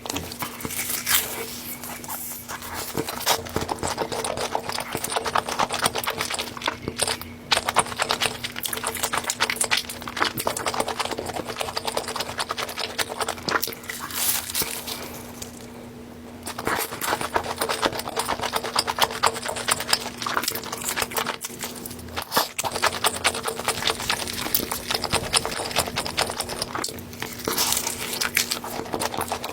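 Close-miked eating sounds: dense, irregular wet chewing and mouth clicks, with a brief lull about halfway through. A faint steady hum runs underneath.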